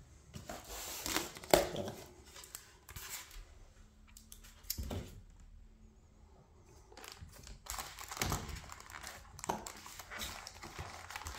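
Styrofoam packaging being handled: the foam lid is pulled off a box and a die-cast model crane is handled in its foam tray, giving irregular rubbing, scraping and crinkling noises, with a sharp knock about a second and a half in.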